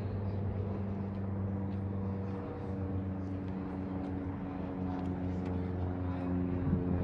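A steady engine hum: a low drone with several steady tones stacked above it, holding an even level.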